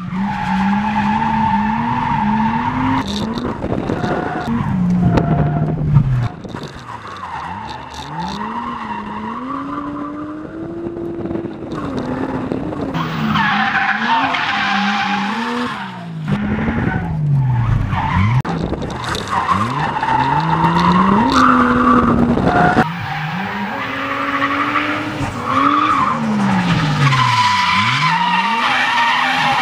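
Toyota Mark II sedan drifting, its engine revving up and falling back again and again while the tyres squeal through the slides. The sound changes abruptly several times, cutting between shots.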